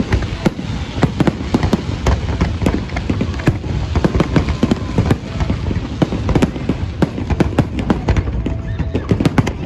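Aerial fireworks display: dense, overlapping sharp bangs of shells bursting and launching, several a second, over a continuous low rumble.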